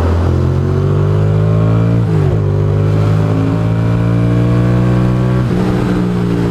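Ducati Monster's V-twin engine accelerating hard through the gears, its pitch climbing steadily, then dropping at an upshift about two seconds in and again about a second before the end.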